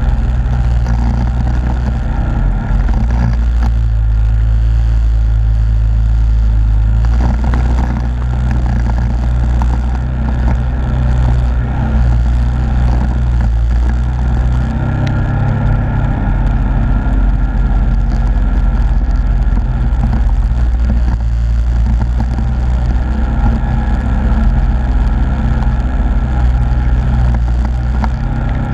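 Yamaha Grizzly ATV's single-cylinder engine running steadily as the quad is ridden along, heard up close from the machine itself.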